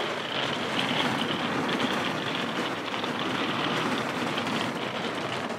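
Heavy rain pouring down steadily onto a caravan awning during a thunderstorm, a dense even hiss.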